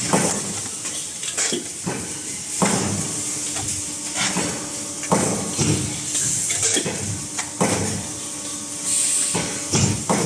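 Hydraulic press for electric kettle parts running with a steady hum, with repeated metallic clanks and knocks every second or two as metal pieces are pressed and handled. Short hisses come in now and then.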